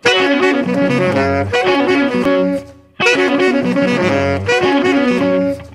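Background music: saxophone-led jazz with brass, the phrase breaking off briefly just before three seconds in and starting again.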